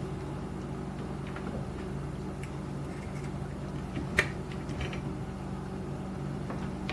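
Steady low hum, with a single light click about four seconds in.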